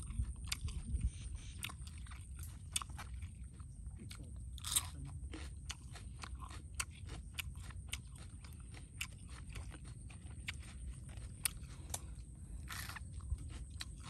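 Close-up mouth sounds of a person chewing raw fish and crunching fresh red chili: wet chewing with many sharp crunchy clicks, and a couple of louder bites about five and thirteen seconds in.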